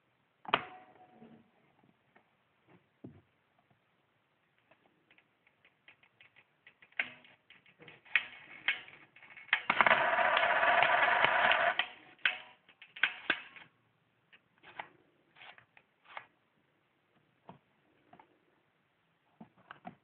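A handmade wooden coin mechanism being worked by hand: a sharp wooden clack about half a second in, then scattered clicks and knocks, with a dense rattling clatter lasting about two seconds near the middle.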